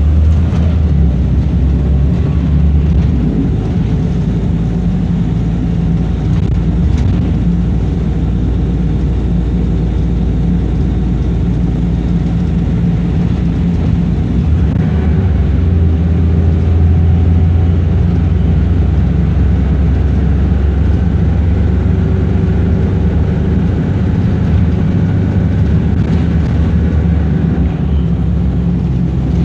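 Wright Eclipse single-deck bus's diesel engine running steadily under way, with road noise, heard from inside the passenger saloon. The low engine drone shifts in pitch about halfway through.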